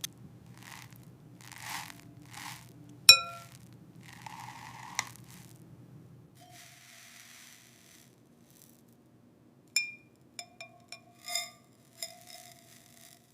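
AI-generated glass-food ASMR sounds: soft scraping and crinkling, a sharp ringing glass clink about three seconds in, then a quick run of small ringing clinks and taps near the end.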